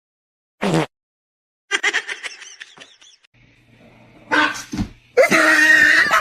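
A dog vocalizing in several short bursts, the last about a second long and the loudest.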